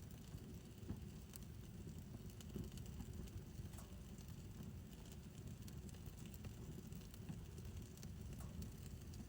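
Wood fire burning in a fire pit: a low, steady rumble of flames with scattered faint crackles and pops.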